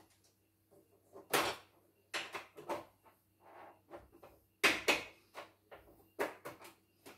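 Irregular clacks and knocks of hard parts being handled at a portable embroidery machine, about a dozen in all, the loudest a little under five seconds in.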